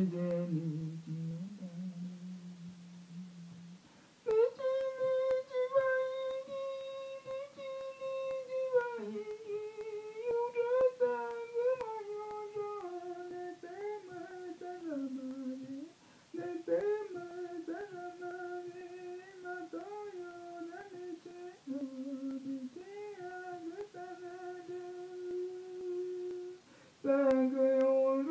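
A voice humming a wordless icaro, an Amazonian ceremonial healing song: long held notes that slide and step between pitches, low for the first few seconds, then higher from about four seconds in, drifting lower again.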